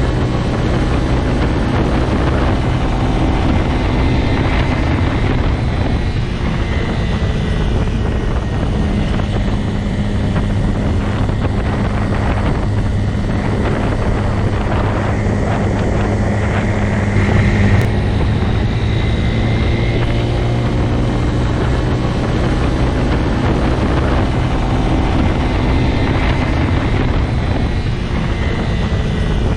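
Motorcycle engine running at a steady speed, a continuous low drone with small shifts in pitch.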